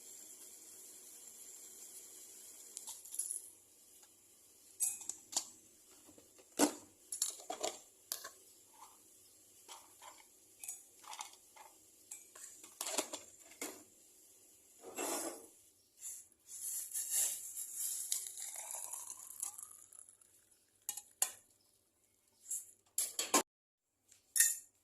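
Glassware, a spoon and dishes clinking and knocking in a string of separate taps, with a few seconds of steady rushing noise with a rising tone about two-thirds of the way in.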